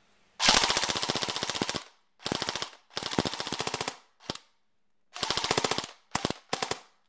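KWA SR-10 airsoft electric rifle with a 2GX gearbox firing on full auto: about seven bursts of rapid, evenly spaced shots, the first and longest about a second and a half, the last ones short.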